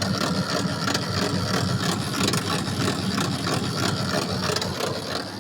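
Gafa automatic washing machine running with a continuous rapid mechanical rattle, which the repairman puts down to a broken gearbox (transmission).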